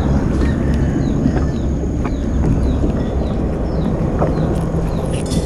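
Small boat engine idling with a steady low chugging, with faint chirps higher up.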